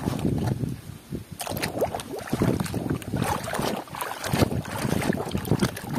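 Muddy water sloshing and splashing in a tub as a plastic toy fire ladder truck is swished and scrubbed by hand, in irregular strokes.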